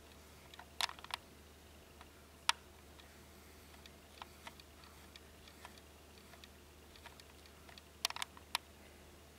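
Irregular sharp clicks and ticks: a quick cluster about a second in, a single louder click a little later, another cluster near the end, and fainter scattered ticks between, over a faint steady low hum.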